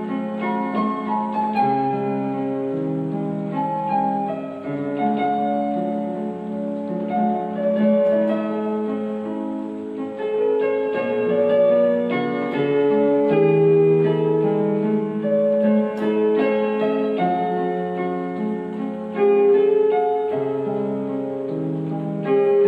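Solo piano music played on an electronic keyboard's piano voice: a melody over flowing broken chords in the lower notes.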